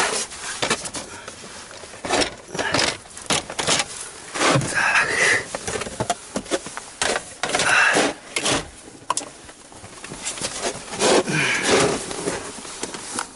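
Plastic interior trim of a Toyota Camry being handled and pried apart by hand, heard from inside the cabin: an irregular run of clicks and knocks with several scraping rustles.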